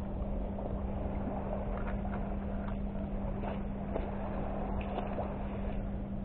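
Steady low motor drone holding one pitch, with a few faint clicks and scrapes of finds being handled in the mud.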